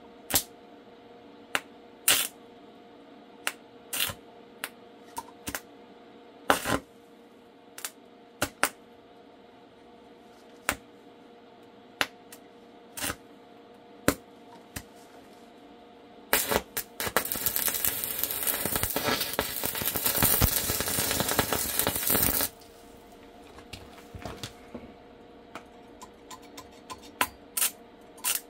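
Scattered sharp clicks and knocks, one every second or two, over a steady hum. In the middle comes a loud, crackling hiss that lasts about six seconds and stops abruptly.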